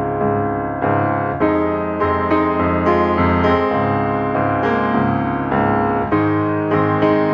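Background music: a piano-led piece with notes struck at a gentle, even pace.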